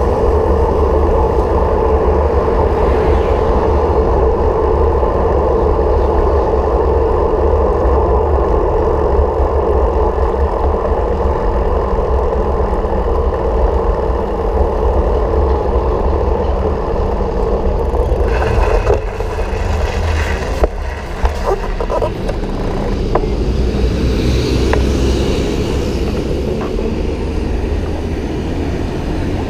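Steady running noise of a vehicle on the move, a low rumble with a strong mid-pitched drone. About two-thirds of the way through the drone eases and a few short knocks and clicks come through.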